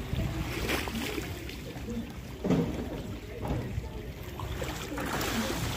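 Shallow seawater splashing and lapping as a catch on a line is dragged through it toward the shore, with voices in the background.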